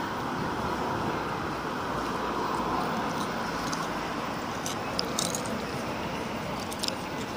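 Steady outdoor background hiss, with a few short sharp clicks about five seconds in and again near the end.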